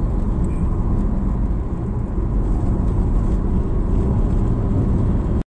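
Steady road and engine noise inside a moving car's cabin, a low rumble at highway speed, which cuts off suddenly near the end.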